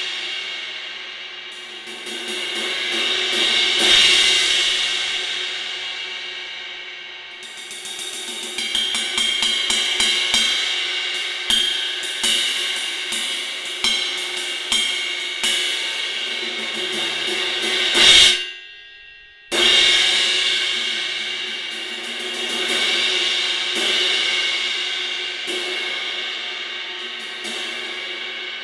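A Synergy Zircon cymbal is played with sticks for a demonstration. Its wash swells and rings, then a run of quick strokes builds to a loud peak. About 18 seconds in the sound cuts off suddenly, as if choked, and after a second and a half of silence the cymbal is struck again and left to ring.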